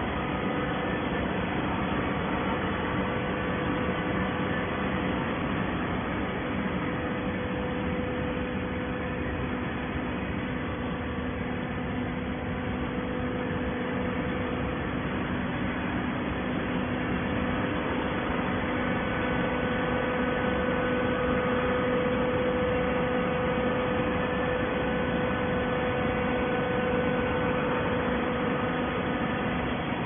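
Horizontal hydraulic auto-tie baler running: a steady machine hum over constant noise, a little louder about two-thirds of the way through.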